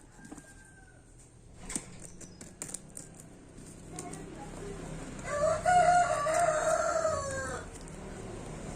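A rooster crowing once, a single call about two seconds long that starts around five seconds in and drops in pitch as it ends. A few sharp clicks come before it.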